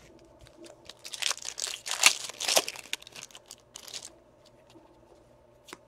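Crinkling and rustling of plastic or foil packaging as trading cards are handled, densest about one to four seconds in, with small clicks.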